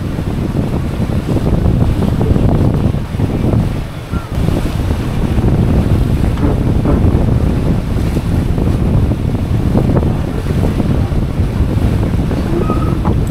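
Boat running at speed on twin outboard motors: wind buffeting the microphone over the steady rush of water from the wake.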